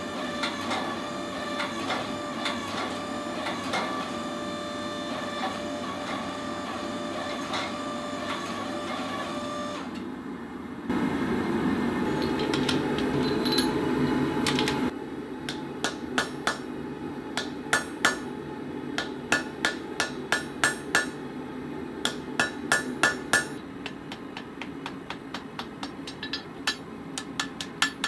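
Power hammer pounding glowing rebar steel in rapid blows, then a few seconds of steady rushing noise, then a hand hammer striking the hot steel on an anvil in quick runs of ringing blows with short pauses between.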